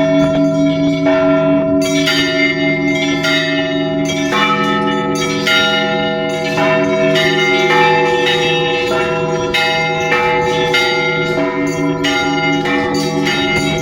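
Russian Orthodox church bells ringing an Easter peal: several bells of different pitches struck one after another in quick, irregular succession, over the deep, lingering hum of the larger bells.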